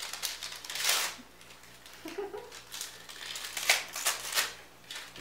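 Gift wrapping paper or packaging being handled and torn open: crackling rustles in a few short runs, the sharpest clicks a little past the middle.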